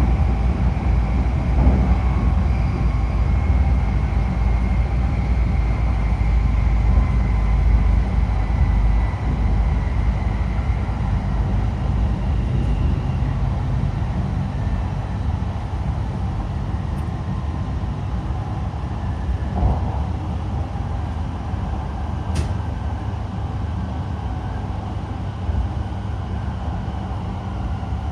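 E5 series Shinkansen running sound heard inside the car: a steady low rumble of wheels and track with a faint whine from the IGBT-VVVF traction inverter. The whine slowly lowers in pitch and the noise gradually eases. A couple of short clicks come about two-thirds of the way in.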